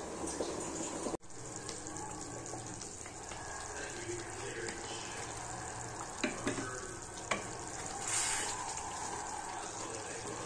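Thick tamarind gravy with whole brinjals bubbling and sizzling steadily in a pot as it simmers, stirred with a wooden spatula. Two sharp light knocks come past the middle.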